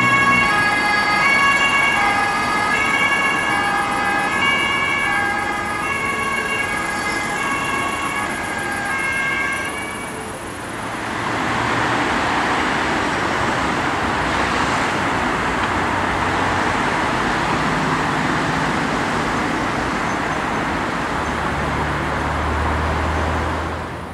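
German two-tone emergency-vehicle siren (Martinshorn) alternating steadily between its high and low notes. About ten seconds in it gives way to a steady rushing of road traffic, with a low engine hum near the end.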